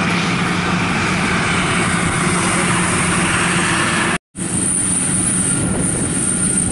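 World 102 rice combine harvester's engine and cutting gear running steadily as it harvests, a low hum under a dense mechanical rush. The sound cuts out for an instant a little after four seconds, then carries on with a high thin whine on top.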